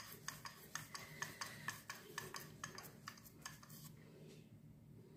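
Wooden rolling pin rolling out a cauliflower-stuffed paratha on a wooden board. It makes a faint run of quick clicks, about four a second, that stops about four seconds in.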